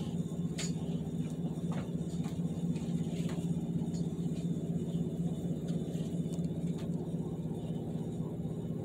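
A steady low mechanical hum, like a motor or household appliance running, with a few faint clicks scattered through it.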